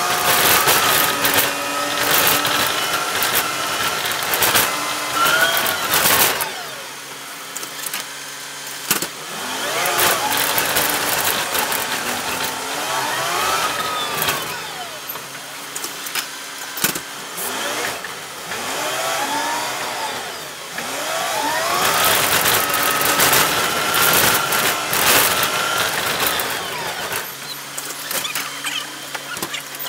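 City bus running, heard from inside: the drivetrain whine rises in pitch as the bus pulls away, holds, and falls as it slows, several times over, with a steady low engine note and rattles from the body.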